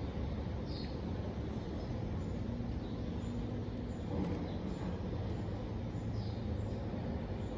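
A steady low rumble, with faint soft crunches of a hamster nibbling lettuce leaves.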